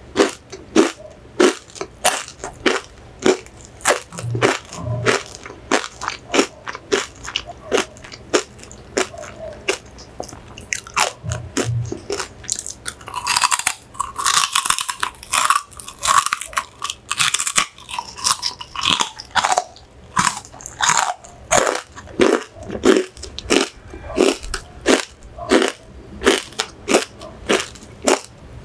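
Crunchy chicharon (deep-fried pork rinds) being chewed with crisp crunches about twice a second. About halfway through, a fresh bite into a piece brings a spell of denser, crisper crackling.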